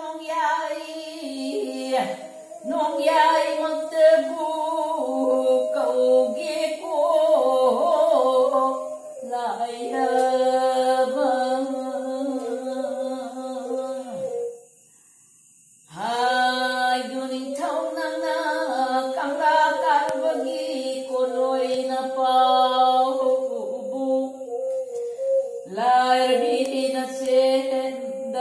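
An elderly woman singing a traditional melody with a bowed fiddle playing along with her. Both break off for about a second and a half midway, then carry on.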